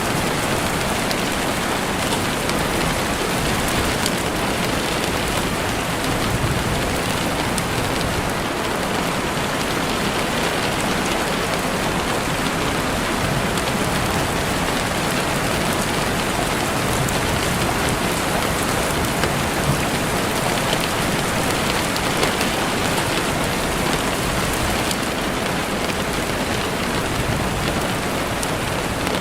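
Steady rain falling in woodland, an even hiss with no letup, with a few faint sharp crackles from a campfire now and then.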